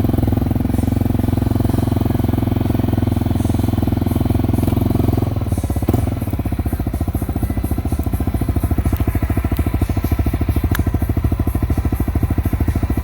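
Motorcycle engine running close by, then settling about five seconds in into a loping idle with an even, rapid pulse.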